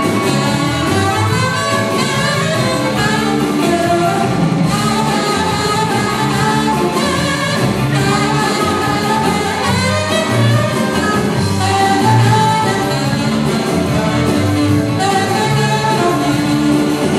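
Live band playing: a saxophone carries the melody over electric bass, electric guitar and keyboard, at a steady loud level without a break.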